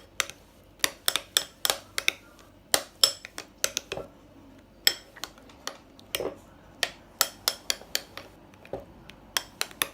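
Spoon or stirring utensil clinking against a mixing bowl while stirring a slime mixture of glue and oil: sharp, irregular clinks, two or three a second.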